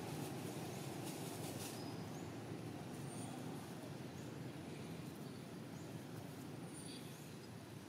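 Faint outdoor background: a steady low rumble that fades slowly, with faint high chirps every second or so.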